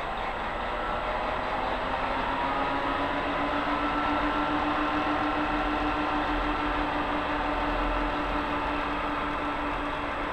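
Red-and-white locomotive approaching and passing slowly on the station tracks. Its engine gives a steady pitched hum that rises slightly in pitch a few seconds in, then holds.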